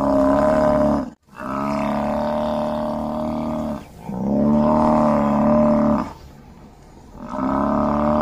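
American bison bellowing: long, deep, drawn-out calls of two to three seconds each, one after another with short breaks in between.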